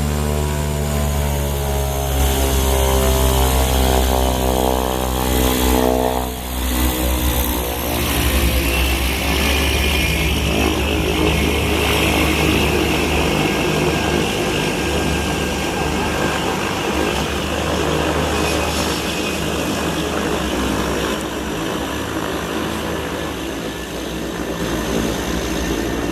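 Cessna 208 Caravan's Pratt & Whitney PT6A turboprop running at power. A strong propeller drone with shifting pitch gives way, after about seven seconds, to a broader rush with a high turbine whine.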